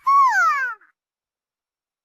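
A single squeaky, animal-like cartoon cry that rises briefly and then slides down in pitch, lasting under a second.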